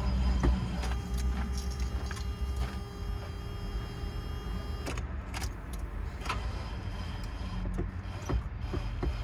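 The starter of a 1990 Range Rover Classic cranking its petrol V8, a lumpy low turning-over rumble. A steady whine sounds through it from about one second in and stops about five seconds in. The engine has just had a new fuel pump and leaking fuel lines replaced and is not catching.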